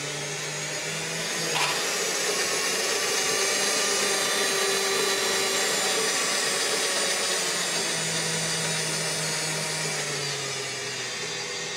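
Electric motor and gears of a 5-litre planetary stand mixer running unloaded with an empty steel bowl, a steady whine. About a second and a half in there is a click, after which it runs louder.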